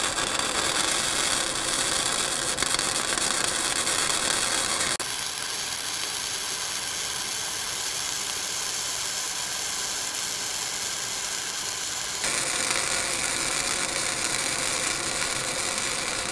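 Flux-core MIG arc welding with .030 flux-cored wire on 3/16-inch steel plate, from a Vulcan OmniPro 220 running on 120 volts: the steady crackle and hiss of the arc, which goes thinner and a little quieter for several seconds in the middle before picking back up.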